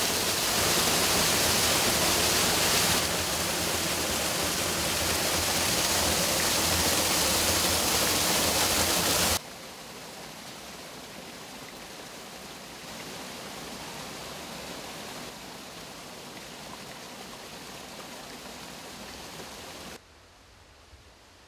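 Steady rush of running water in a canyon stream, loud at first, then dropping abruptly about nine seconds in to a softer rush, and fainter again near the end.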